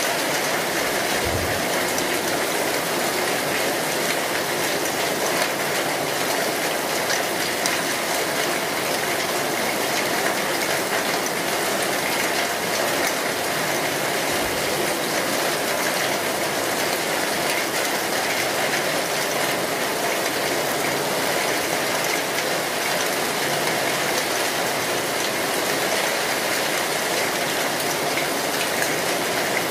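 Potatoes and carrots frying in hot olive oil in a pan: a steady, dense sizzle and crackle. Two faint low knocks sound under it, about a second in and again near the middle.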